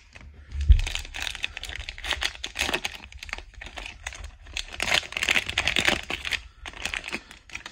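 A plastic wrapper on a Panini Contenders football card pack being torn open and crumpled in the hands, with irregular crinkling and crackling. A single dull low thump comes just under a second in.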